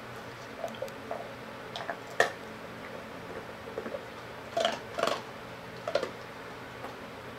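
White Labrador crunching and chewing a Milk-Bone dog biscuit: scattered, irregular crunches and mouth clicks, the loudest about two seconds in.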